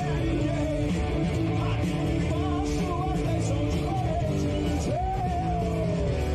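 Rock music with a singing voice and guitar.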